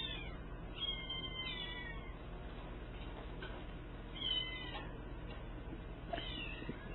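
Kittens meowing: high-pitched mews in three short bouts, about a second in, around four seconds and near the end.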